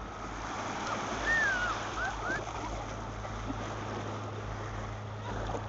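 Shallow surf washing and splashing over sand, with a few short squeaky sliding calls between about one and two and a half seconds in, and a steady low hum underneath.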